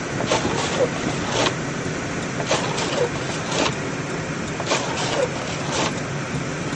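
Steady road and engine noise heard inside a car cabin while driving on a wet, icy highway, with irregular sharp taps and short squeaks every second or so.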